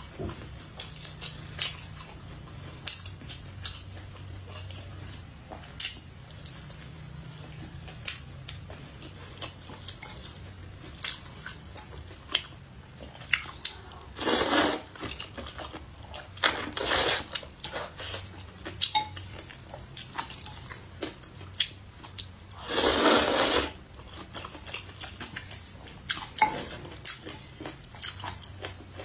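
Close-up eating sounds: chewing and biting into a crusty sesame bun, with many short crisp clicks throughout. Loud slurps of noodles come about halfway through, again briefly shortly after, and a longer slurp about four-fifths through.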